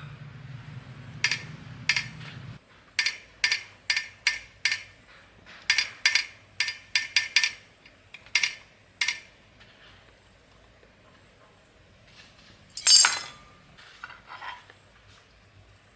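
Metal clinking during pump repair work: about fifteen sharp clinks over the first nine seconds, some in quick pairs, then one louder clattering scrape about 13 seconds in. A low hum cuts off about two and a half seconds in.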